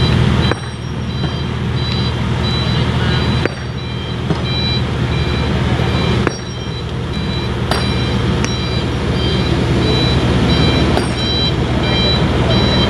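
Sumitomo hydraulic excavator's diesel engine running steadily, with repeated short high beeps over it. The sound drops suddenly about half a second in, again near three and a half and six seconds, and builds back up each time.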